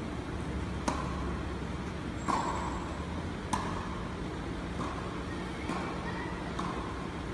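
Tennis balls being struck by rackets and bouncing during a rally: about six sharp pocks roughly a second apart, the first three loudest, each with a short echo from the hall. A steady low hum runs underneath.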